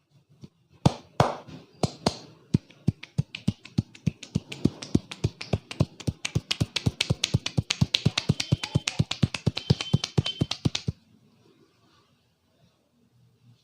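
Rapid rhythmic percussion of a barber's hands striking the head during an Indian head massage. It opens with a few heavy slaps, settles into a fast run of about five or six strikes a second, and stops abruptly near the end.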